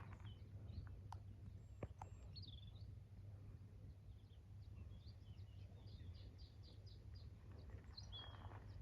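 Faint bird chirping: a quick run of short high notes starting about two and a half seconds in, over a low steady rumble, with a few sharp clicks near the start.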